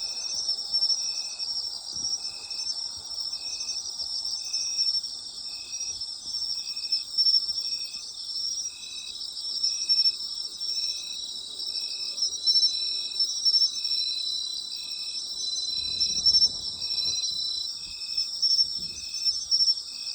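Night chorus of autumn insects: several keep up high, continuous trills, while one chirps at a steady rhythm about once a second.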